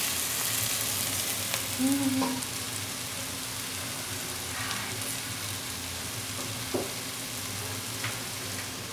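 Pot of eggplant touffée sizzling steadily over a gas flame while a wooden spoon stirs it. A short hum from a person about two seconds in, and a light click near seven seconds.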